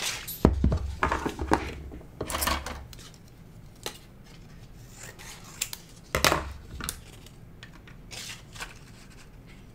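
Paper and small crafting tools handled on a desk: a sharp knock about half a second in, paper rustling and light taps, another knock about six seconds in, then quieter scattered clicks.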